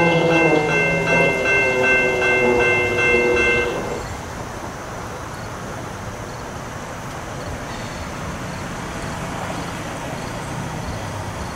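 An approaching train's horn sounds along with a rapidly ringing bell, and both cut off about four seconds in. After that comes the quieter, steady low rumble of the train still some way off.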